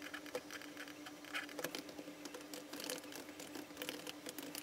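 Typing on a computer keyboard: quick, irregular keystroke clicks over a faint steady hum.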